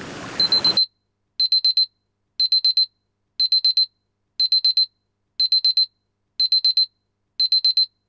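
Electronic alarm beeping in quick bursts of four high beeps, repeating about once a second: the timer's end-of-countdown alarm. Ocean-wave sound plays under the first burst and cuts off suddenly just under a second in.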